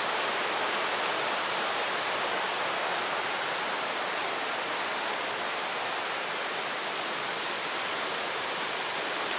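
Steady rush of a fast-flowing mountain creek, an even hiss of water with no breaks.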